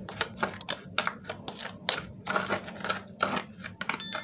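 A spoon stirring sugar and yeast together in a bowl: a steady run of quick scraping strokes.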